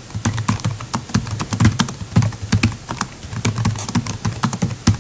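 Typing on a computer keyboard: a quick, irregular run of key clicks, several keystrokes a second.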